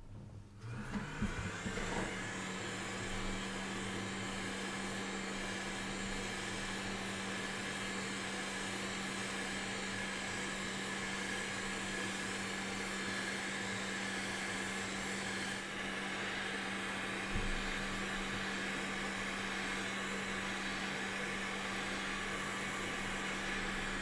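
Hot-air rework station blowing steadily onto a memory chip to melt its solder so the chip can be lifted off the board. The airflow starts about a second in.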